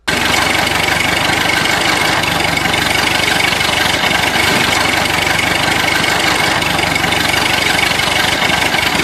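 A loud, steady engine running sound that cuts in suddenly at the start, with a constant whine running through it.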